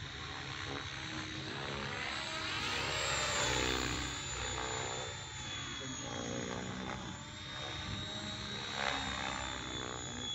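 Thunder Tiger E620 electric RC helicopter flying on a 6S LiPo: a steady high motor whine over the whir of the rotor blades. It swells to its loudest about three and a half seconds in, with a brief louder burst near nine seconds.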